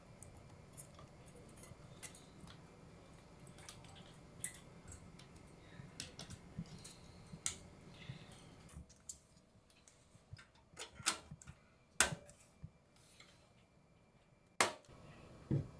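Scattered sharp clicks and light knocks of small hard parts being handled, as in fitting computer components during assembly. A low hum under them stops about nine seconds in, and there are two louder clacks near the end.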